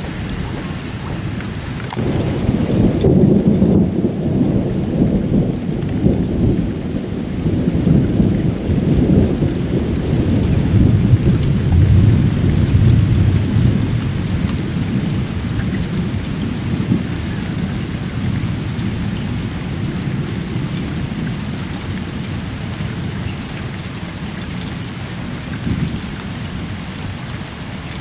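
Rolling thunder from a passing thunderstorm system over steady rain. The deep rumble starts suddenly about two seconds in, swells twice and dies away over roughly fifteen seconds, leaving the rain hiss.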